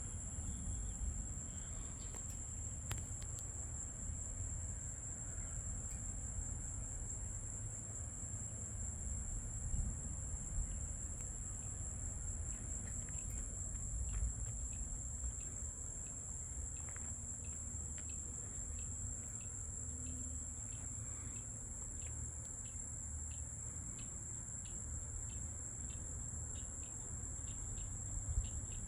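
Chorus of insects: a steady high-pitched drone over a low rumble. Near the end a separate quick chirp joins in, repeating about two or three times a second.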